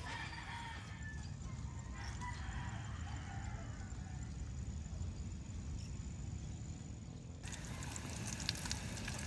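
A rooster crowing over a steady low rumble, then, from about seven seconds in, bacon sizzling and crackling in a frying pan.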